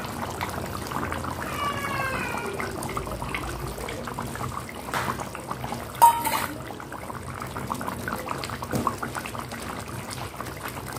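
Fish and potato curry simmering in a wok, with a faint steady crackle of small bubbles. A cat meows once, about two seconds in, and there is one sharp clack about six seconds in.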